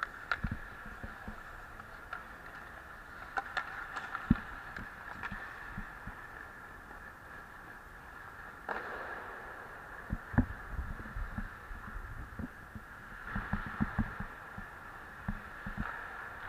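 Ice hockey skating: skate blades hissing and scraping on the ice, with scattered sharp clacks of sticks and puck and low knocks. The loudest clacks come about four seconds in and about ten seconds in.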